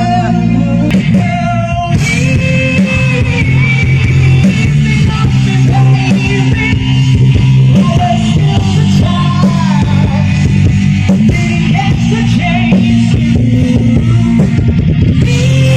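Live rock band playing: a man singing over electric guitar and bass, loud and continuous.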